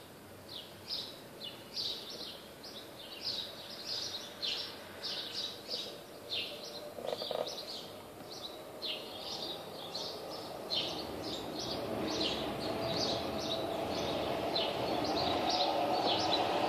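A small bird chirping over and over, about two short chirps a second, over a background noise that grows louder in the second half.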